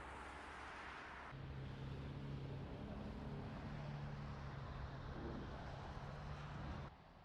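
A vehicle engine idling with a steady low hum over a background hiss. It starts abruptly about a second in and cuts off abruptly near the end.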